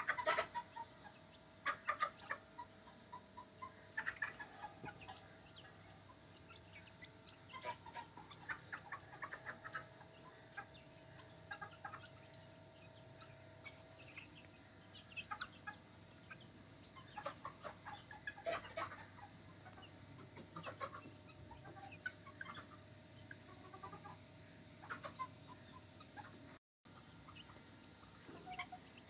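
Young Ayam Cemani chickens calling: many short, scattered calls from several birds at once, with a faint steady hum underneath.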